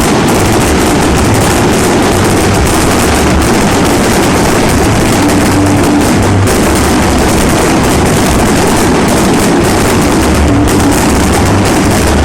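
A fireworks barrage crackling and popping in a dense, continuous rapid stream, with deep thuds underneath.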